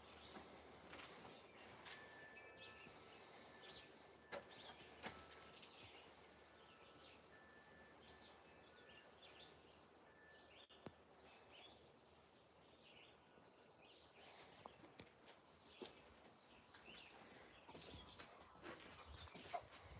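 Near silence: faint outdoor ambience with scattered distant bird chirps and a few soft taps.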